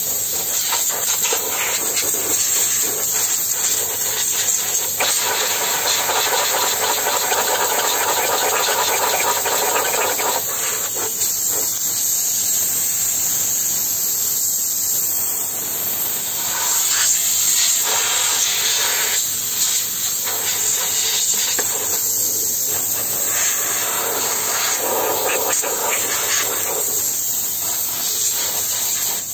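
Handheld steam cleaner jetting steam through its wand nozzle in a loud, steady hiss, its tone shifting every few seconds as the nozzle is moved around inside an espresso machine's housing.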